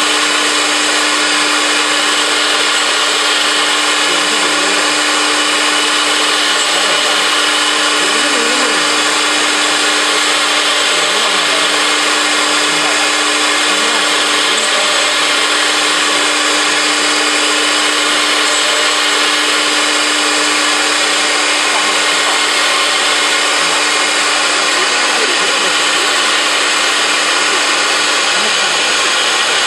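Four-spindle CNC router running, its spindles whining steadily as a bit machines a wood board. A strong low steady tone in the whine fades out near the end.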